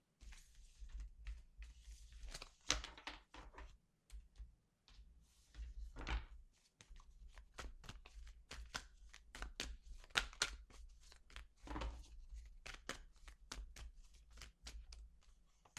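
A deck of tarot or oracle cards handled and shuffled by hand: sliding, rustling card stock with many quick snaps and clicks, thickest in the second half.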